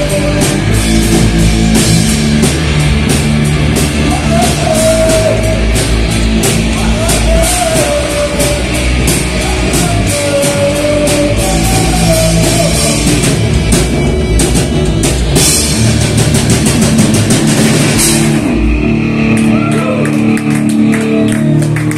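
Punk rock band playing live and loud: distorted guitars, bass and a pounding drum kit with crashing cymbals, with a voice singing over it. The drumming thins out about eighteen seconds in as the song winds down.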